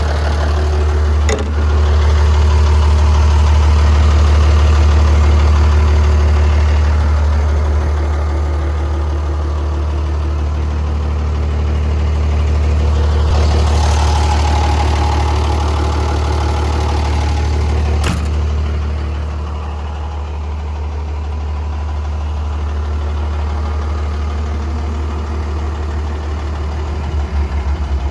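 Komatsu WA100-3 wheel loader's diesel engine running steadily with a deep, even hum. Two sharp knocks are heard, one about a second in and one about two-thirds through. Around the middle, the sound swells briefly, and it is a little quieter afterwards.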